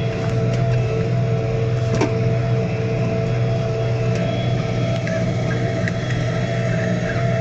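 New Holland T5.95 tractor's four-cylinder diesel engine running steadily under load while pulling a reversible plough through the field: an even drone with a steady whine over it.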